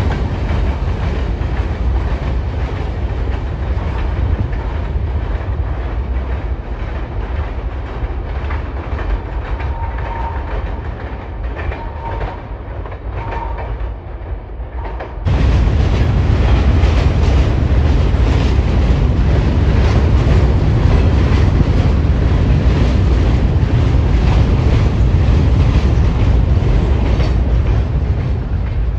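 A train rolling by on the rails with a steady heavy rumble and wheel clatter. About halfway through, the sound cuts suddenly to a louder stretch of passing-train noise.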